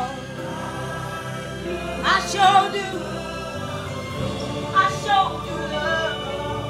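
Gospel music: a choir singing long held notes over sustained chords, with the voices swelling in a phrase about two seconds in and again about five seconds in.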